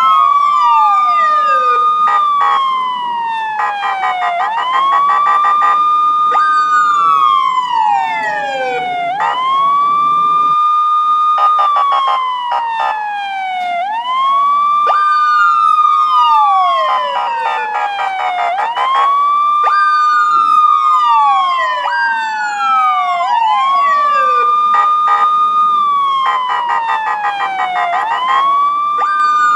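Police siren wailing: the pitch sweeps up, holds briefly and slides down again, about every five seconds, with a second siren overlapping out of step. A few stretches carry a fast pulsing flutter.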